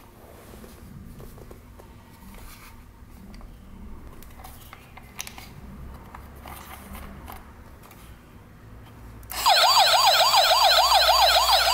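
Faint handling of a plastic toy police car, then about nine seconds in its battery-powered electronic siren switches on: a loud, fast warbling wail of about four sweeps a second, as the toy's lights come on.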